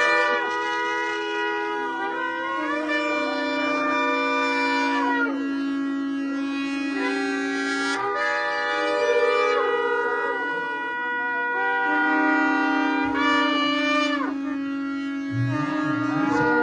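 Many shofars (ram's horns) blown together by a congregation in long, overlapping blasts at several different pitches. Individual horns drop out with bending notes and come back in, while the chorus of horns goes on without a break.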